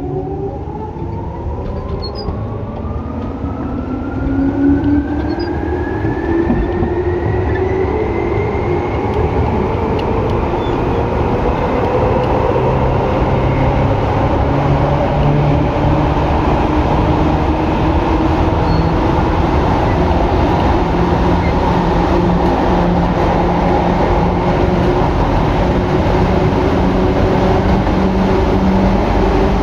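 Tokyu 8500 series electric train running, its Hitachi and Toyo traction motors whining loudly. The whine rises in pitch over the first ten seconds as the train accelerates, then holds a steady pitch and hum at running speed.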